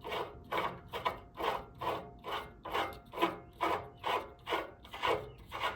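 Threaded adjuster being screwed into a tire changer's frame, its threads rasping in a steady rhythm of about two strokes a second as it is turned.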